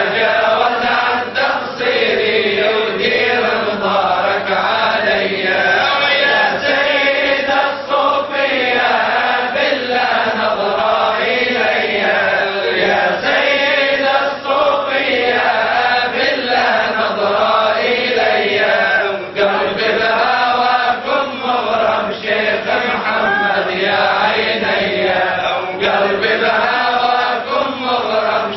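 A man chanting an Islamic devotional qasida without instruments, in a long, continuous, wavering melody.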